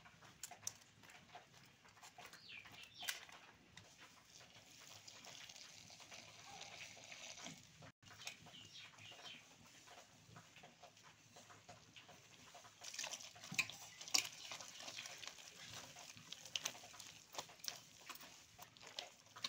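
A hand mixing sliced bottle gourd with flour in a steel bowl: soft squishing and rustling with scattered clicks, busier and louder in the second half.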